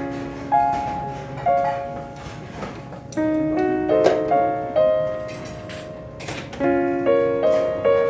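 Slow piano music: single notes and chords struck every second or so and left to ring and fade.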